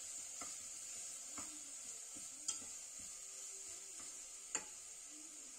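Green masala paste and onions frying in oil with a faint steady sizzle, stirred with a metal slotted spatula in a pressure cooker pot. The spatula gives a few sharp clinks against the pot wall, the clearest about two and a half seconds in and near the end.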